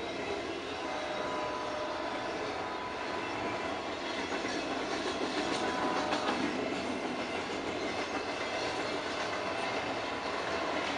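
Double-stack intermodal freight train's well cars rolling past, steel wheels clattering steadily over the rails. A faint thin metallic squeal sounds from the wheels for a few seconds in the first half.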